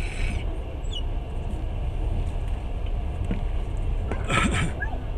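Running noise of a passenger train carriage in motion: a steady low rumble, with a few faint squeaks and a brief hiss about four seconds in.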